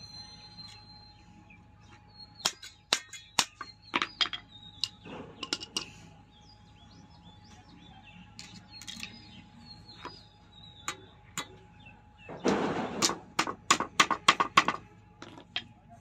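Hand tools, nails and wire being handled on a concrete floor while a wooden trap is built: sharp clicks and taps in two clusters, the later one a quick run of taps after a short scraping burst. Birds chirp faintly in the background.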